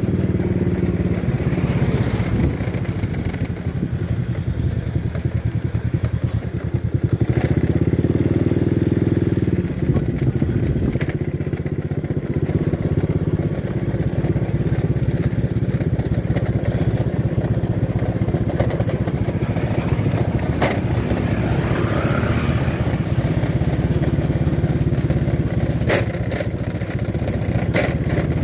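A motorcycle engine running under way, its pitch rising and falling a little with the throttle, over a steady rush of wind and road noise. A few sharp knocks come through at intervals.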